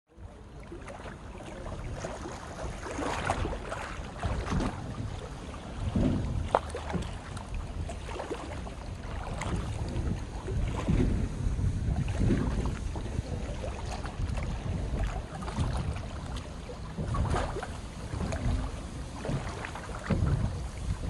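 Gusty wind buffeting the microphone, rising and falling every few seconds, over the rush of a flood-swollen river.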